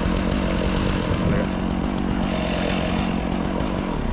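An engine running steadily at low speed, with a held low hum that fades out near the end.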